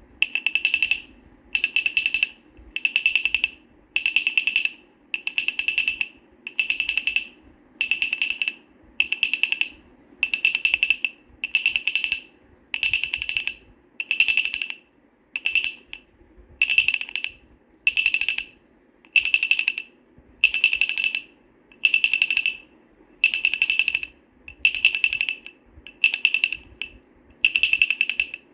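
Wooden baby rattle shaken in a steady rhythm, a little under one shake a second, each shake a short burst of rapid rattling clicks.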